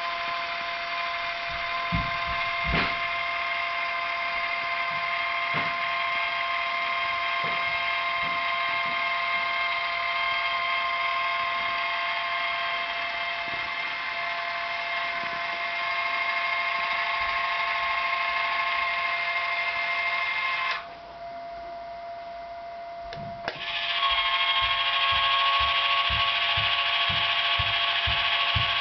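Lone Star G-scale model-railroad turntable's electric drive running with a steady whine. It stops about three quarters of the way through, starts again a couple of seconds later with a click, and then runs on with a quick run of low clicks.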